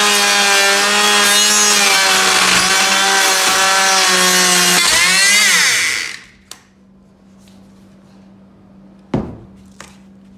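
Power saw running through wood at a steady speed, then its pitch falls as it winds down and stops about six seconds in. A single knock follows near the nine-second mark.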